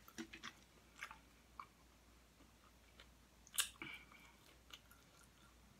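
A person chewing nachos, with a few soft scattered crunches and mouth clicks, the sharpest crunch about three and a half seconds in.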